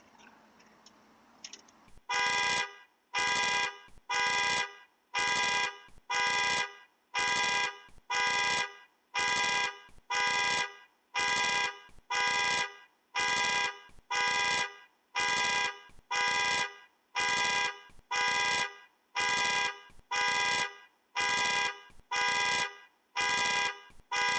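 Truck's alarm going off, honking its horn in a steady rhythm of short blasts about once a second, starting about two seconds in: the alarm set off by the door being forced open in a break-in. Faint clicks before the alarm starts.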